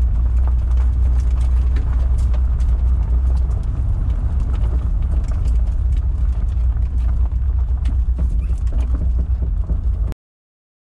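A 1973 Datsun 240Z's inline-six heard from inside the cabin as a steady low drone, with gravel crunching and small stones ticking under the tyres on a dirt trail. It cuts off suddenly about ten seconds in.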